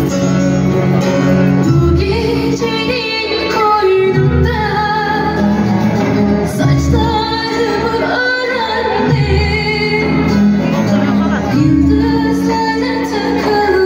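Music playing loudly, with a woman singing a melody over sustained bass notes and a regular bass pulse about every two seconds.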